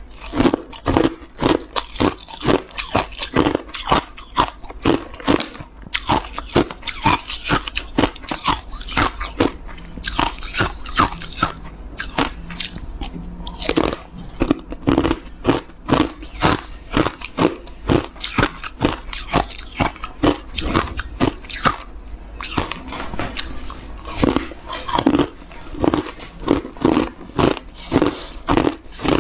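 Hard ice cubes dusted with matcha powder being bitten and chewed: a steady run of sharp, loud crunches through the whole stretch.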